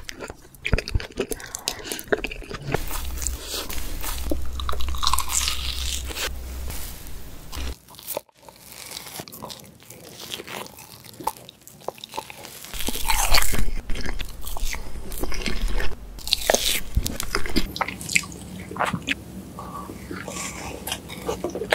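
Close-miked eating of crepe cake: big bites and wet chewing, full of small sharp mouth clicks and smacks. The sound changes abruptly twice as one eater gives way to another.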